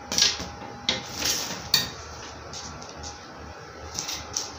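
Metal scissors clinking and knocking against a glass tabletop, a few sharp clicks in the first two seconds, then the scissors starting to cut through brown pattern paper near the end.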